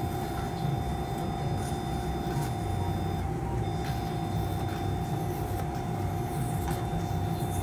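Operating-room equipment: a steady electronic tone that breaks off briefly about three seconds in, over a continuous low hum.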